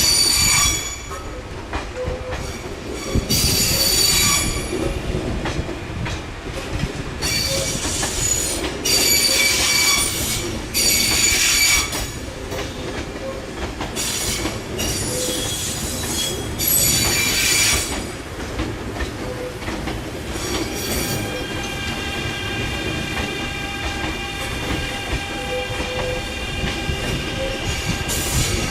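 E351 series electric train rolling slowly through depot trackwork, its wheels squealing on curves in repeated high-pitched bursts every few seconds over a low rumble, with a longer steady squeal in the last quarter.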